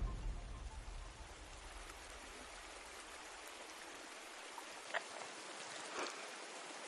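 Steady rush of flowing river water, with two short sharp sounds about five and six seconds in.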